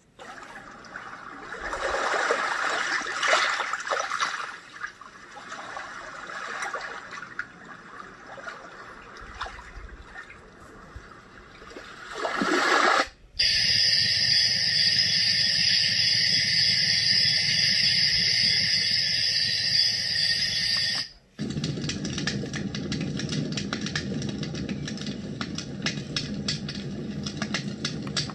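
Renpho white noise sound machine playing three of its built-in nature sounds, one after another, with a short break as each is switched. First comes an uneven flowing, water-like sound. A steady high hiss follows about 13 seconds in, then a lower rushing sound about 21 seconds in.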